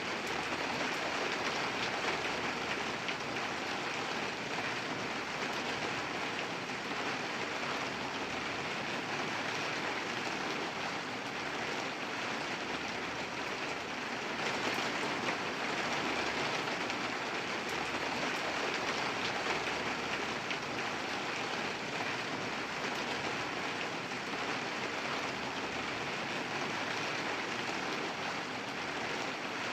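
Steady rain falling, a dense even patter of drops hitting a surface.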